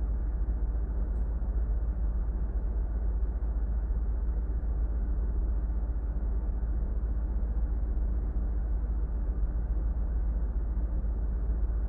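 Steady low rumble and hum of a ship's engine-room machinery, even throughout with no knocks or clicks.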